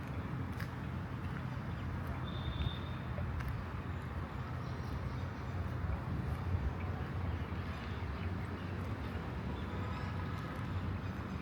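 Outdoor ambience: a steady low rumble with faint scattered clicks, and a brief high chirp about two seconds in.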